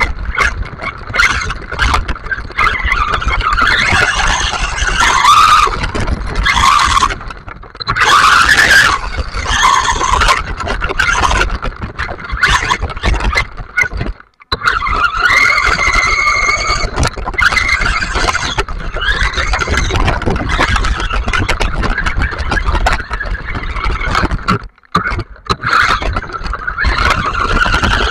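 Electric WLtoys RC buggy driving fast on wet gravel and dirt: a motor and gear whine that rises and falls with the throttle over tyre and wind rumble on the car-mounted camera, dropping out briefly twice, about halfway through and near the end.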